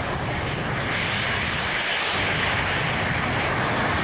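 Loud engine roar, without a clear pitch, from a machine trailing a long flame along the runway; it swells about a second in and stays strong.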